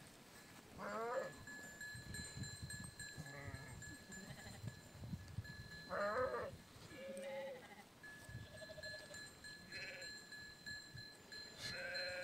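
A flock of sheep bleating: a string of separate wavering bleats, some high and some lower, one every second or two.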